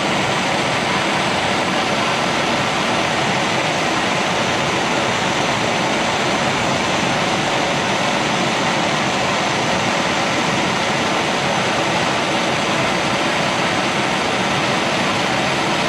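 A heat tool blowing steadily on paint-coated wrenches to cure the coating, a continuous even rushing noise.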